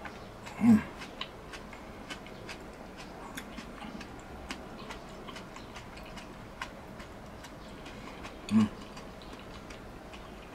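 A person eating: a stream of small irregular clicks and smacks from chewing and chopsticks, with two brief, louder low throat sounds, about a second in and again about two seconds before the end.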